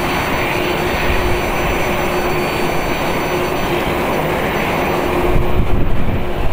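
Jet noise from the four GEnx-2B67 engines of a Boeing 747-8 freighter as it rolls out after landing: a steady rushing noise with a faint hum. The low rumble grows louder and gustier about five seconds in.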